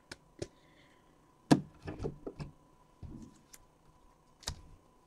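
Light clicks and knocks of things being handled and set down on a desk, with one louder thump about a second and a half in, a cluster of duller knocks after it, and a sharp click near the end.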